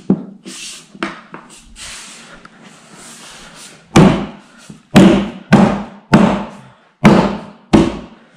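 Six heavy thumps in the second half, from a hand striking the particleboard top of an IKEA Kallax shelving unit to knock it down into place. Before them come softer scuffs and light knocks of the board being handled.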